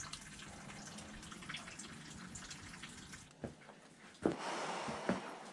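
Water dripping in a wet rock cave: faint, scattered small drips, then three dull thumps and a spell of rustling hiss in the second half.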